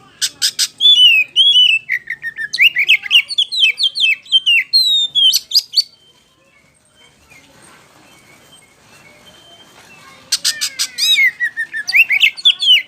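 Oriental magpie-robin (kacer) singing loud, varied whistled phrases with sharp downward pitch sweeps. It sings in two bouts with a pause of about four seconds between them.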